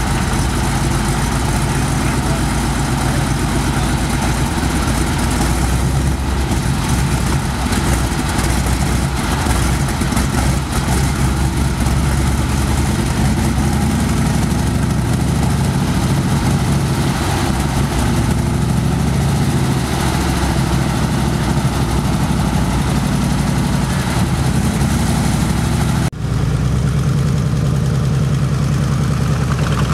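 Continental W-670 seven-cylinder radial engine of an M3A3 Stuart light tank idling steadily. After a cut near the end, the tank is under way with the engine still running.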